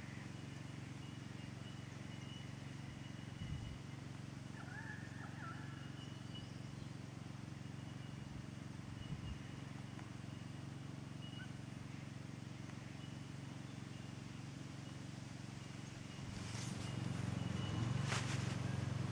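Faint outdoor background with a steady low hum and a brief bird chirp about five seconds in. Near the end it grows louder, with rustling and a couple of sharp crackles.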